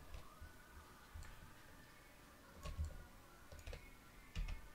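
A few faint computer mouse clicks at uneven intervals, over quiet room tone.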